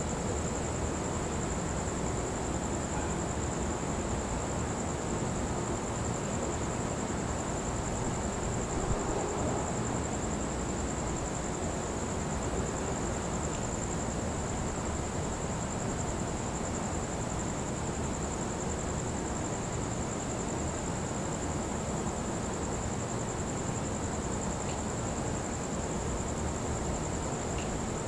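Crickets trilling steadily at a high, even pitch over a steady low rushing background noise.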